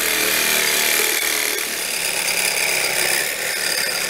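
Cordless reciprocating saw running steadily, its blade cutting through the head of a seized bolt on a tow hitch.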